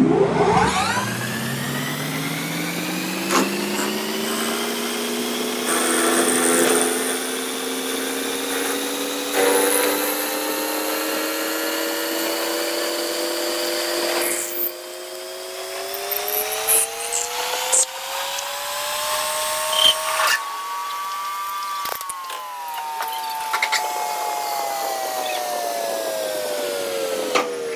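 Motor of a metalworking machine whining as it speeds up: the pitch climbs steadily for about twenty seconds, then drops as it slows near the end. Occasional sharp clicks and scrapes of metal.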